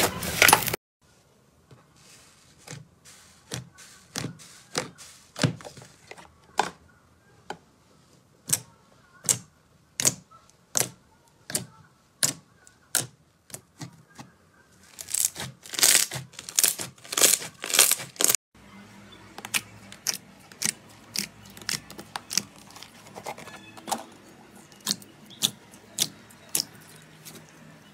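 Slime being pressed and squeezed by hand, giving a string of sharp clicks and pops of trapped air, about one a second, with a louder, quicker run of pops around the middle.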